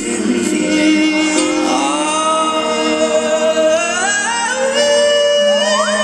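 Live pop-rock band performing: a male lead vocal holding long, gliding sung notes over keyboard and band accompaniment, heard through the reverberant sound of a large concert hall.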